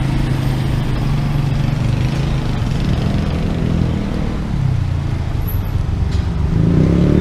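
Street traffic, led by a motor vehicle's engine running steadily close by, its pitch rising near the end as it speeds up.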